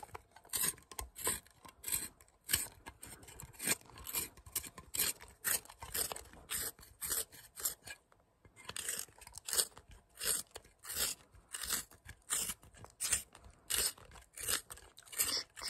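Pencil being twisted in a small handheld plastic sharpener, the blade shaving the wood in a rhythmic run of crisp, crunchy scrapes, about two to three a second, with a short pause about eight seconds in.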